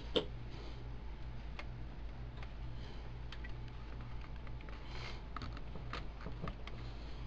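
Scattered light clicks and taps of parts being handled and worked loose inside a Dell Optiplex 755 desktop case, over a steady low hum.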